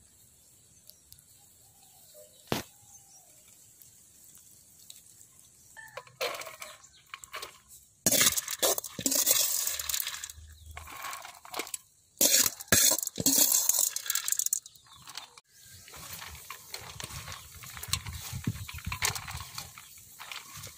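Dry roasted green gram and other dry ingredients being handled on a steel plate: bursts of rattling, clinking and rustling in the middle, then softer rustling as hands mix the grains on the plate. A single sharp click comes early.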